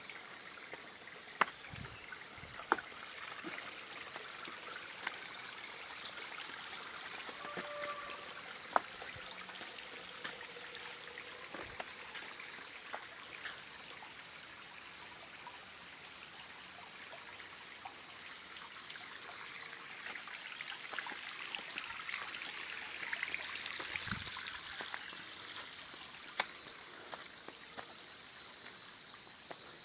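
Shallow mountain stream trickling over and between rocks, with a steady high-pitched buzz above the water that grows louder in the second half. A few sharp clicks stand out.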